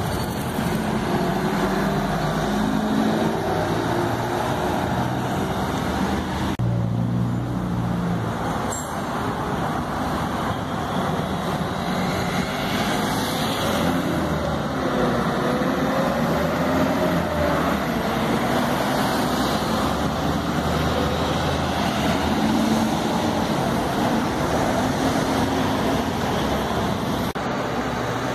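Busy city street traffic: city buses, cars and motorcycles driving past with engines running and tyres on the road, a steady mass of traffic noise. Around the middle, one engine's note rises and falls.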